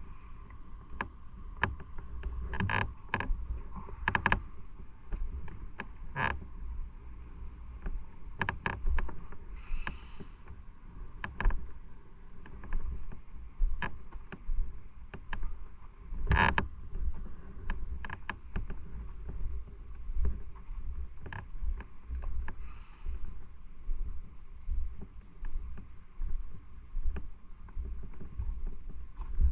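Low rumble of a motorcycle on the move, picked up by a bike-mounted camera, with frequent sharp clicks and knocks. A handful of the knocks are loud.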